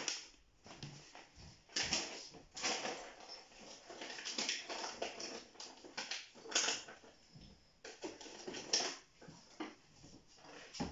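Plastic packaging of piping nozzles crinkling and rustling in irregular bursts as it is opened and handled.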